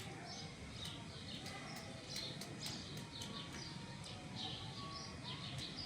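Small birds chirping, many short calls in quick irregular succession, with faint sharp clicks among them.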